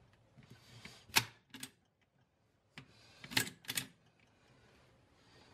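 Steel parts of a shotgun's action being slid along the magazine tube into the receiver: a short metal scrape, then two sharp clicks about a second in, and another scrape followed by a cluster of clicks about three and a half seconds in.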